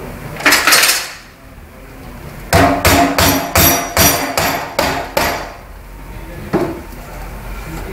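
Hammer blows on metal during the rebuild of an Öhlins motorcycle rear shock. A quick double strike comes first, then a run of about ten ringing blows in quick succession, then one last strike.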